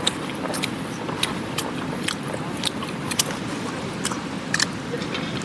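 Steady rushing of a mountain river, with scattered sharp clicks and taps at irregular intervals.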